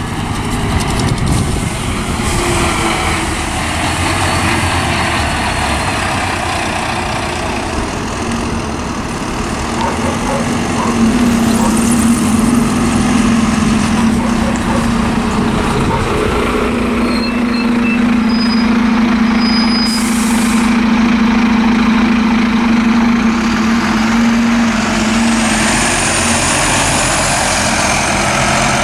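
Volvo double-decker buses running on a concrete guided busway: engine noise and tyre rumble throughout, with a steady low hum through the middle. A brief hiss of air comes about two-thirds of the way in.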